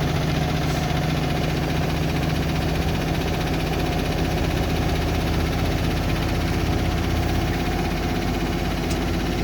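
Front-loading washing machine on its 1400 rpm final spin: the drum turning at full speed with a steady hum, even and unchanging.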